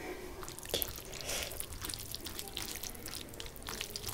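Rice and fish curry gravy being mixed by hand, close to the microphone: soft, irregular wet squishes and small crackles.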